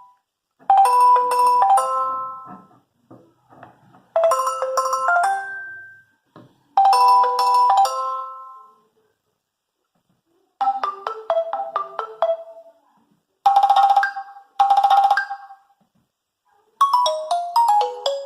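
Nokia 8110 4G phone ringtones playing: a short melody of quick bright notes repeats three times. After a short pause a different tune plays, and another starts near the end.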